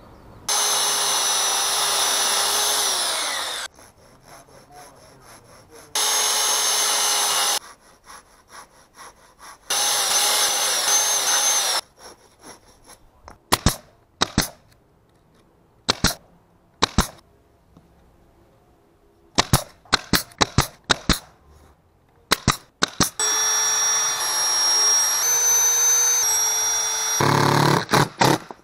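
A power tool runs in three bursts of a few seconds each, its motor tone dropping as each run stops. A nail gun then fires about a dozen sharp shots, driving 2-inch nails into a wooden frame. Near the end a cordless drill runs steadily, driving 3-inch screws.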